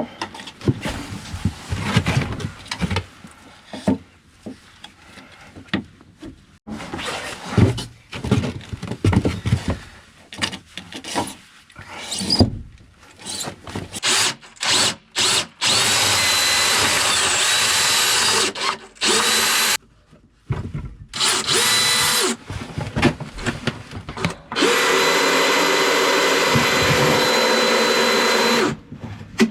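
Irregular knocking and scraping, then a power drill running in several long steady bursts through the second half, the longest near the end.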